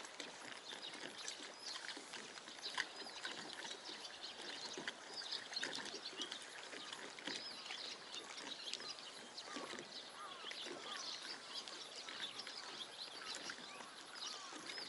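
Faint birdsong: many short chirps and calls from several birds overlapping, over a quiet outdoor background hush.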